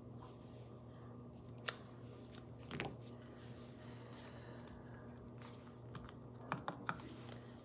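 A few light clicks and taps from paper-crafting tools on a work table, most likely stamping and inking: one sharp click about two seconds in, a small cluster a second later, and several quick clicks near the end, over a steady low hum.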